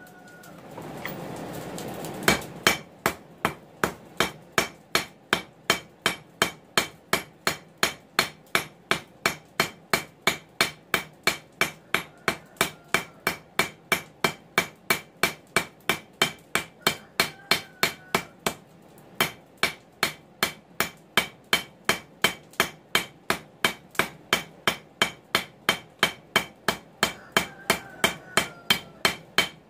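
Hand hammer striking a red-hot mild steel bar on an anvil: a long, steady run of quick blows, each with a bright metallic ring, starting about two seconds in after a low hiss and breaking off briefly just after halfway. The blows are spreading the bar sideways to broaden the handle.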